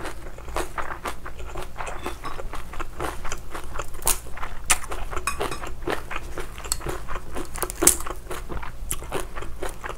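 Close-miked eating of soy-sauce-marinated raw crab (ganjang-gejang): wet chewing and sticky clicks, with sharp cracks as the crab's shell is pulled apart by hand. The loudest crack comes near the end, about eight seconds in.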